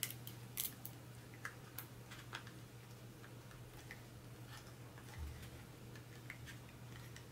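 Faint, scattered light clicks and taps of a 2.5-inch hard drive being handled and seated into a plastic external USB enclosure, busiest in the first couple of seconds, with a soft low thump about five seconds in. A low steady hum runs underneath.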